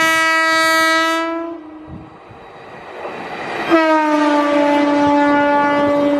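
Horn of an Indian Railways WAP-4 electric locomotive hauling a passenger train: one blast of about a second and a half, then a longer blast from about four seconds in that drops slightly in pitch as the locomotive passes close by. The train's running noise fills the gap between the blasts.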